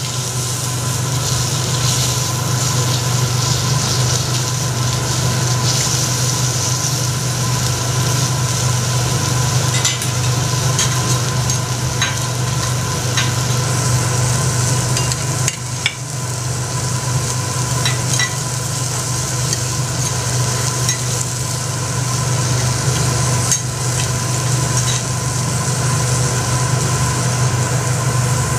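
Lobster and vegetables sizzling on a teppanyaki steel griddle, with scattered sharp clicks and scrapes of the chef's knife and spatula against the steel, over a steady low hum.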